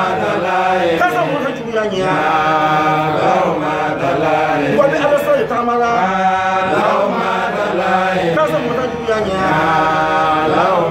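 A man's voice chanting in a sing-song recitation, in long melodic phrases of a couple of seconds each.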